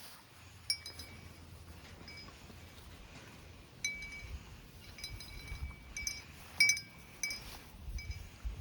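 Small metal tags on a dog's collar jingling and clinking as the dog moves, in scattered bursts, with the loudest clink about two-thirds of the way through.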